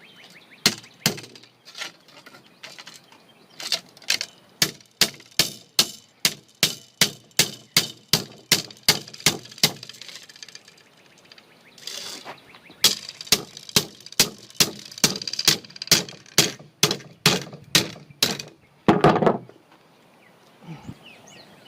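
Hammer blows on a bent metal trailer corner trim piece to flatten it, sharp strikes about two a second in two runs with a short pause between them.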